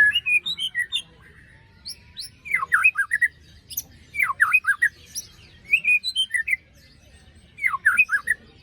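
A white-rumped shama sings short bursts of rapid, steeply falling whistled notes, about five phrases with brief pauses between them.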